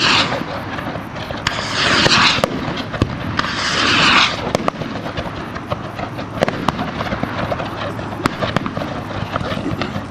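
Hand-made skyrockets launching: the tail of one hissing whoosh at the very start, then two more at about 2 and 4 seconds in. Sharp cracks and pops run throughout as rockets burst overhead.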